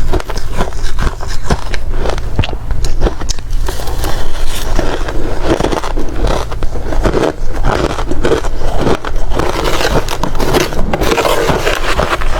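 Close-miked chewing of hard ice: continuous loud crunching and cracking as the ice cubes are bitten and ground between the teeth, with no pause.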